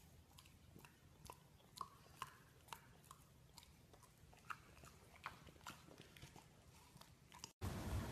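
Faint, irregular small clicks and smacks from a shar-pei puppy: claws on a tile floor and mouth noises. About seven and a half seconds in, this cuts abruptly to a much louder, steady noise.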